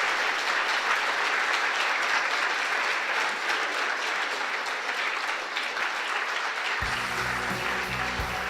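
Audience applauding steadily. About seven seconds in, music with sustained low notes comes in under the applause.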